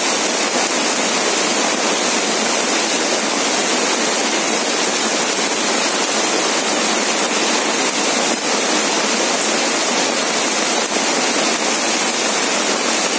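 Heavy rain mixed with hail pelting down in a loud, steady, unbroken rush.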